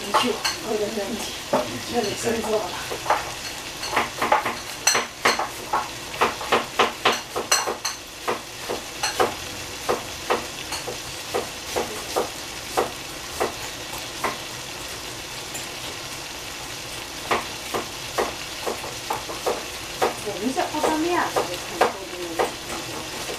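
Vegetables sizzling in a frying pan while a utensil stirs them, clacking against the pan in runs of sharp knocks with pauses between.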